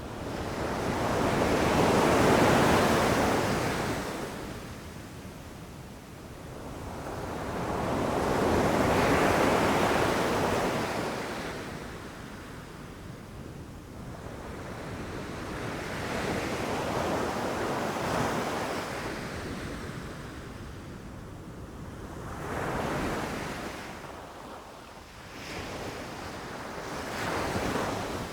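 Ocean waves rushing in and breaking, each one swelling and then ebbing away over several seconds. The two biggest break in the first ten seconds, followed by a longer, gentler wash and two smaller waves near the end.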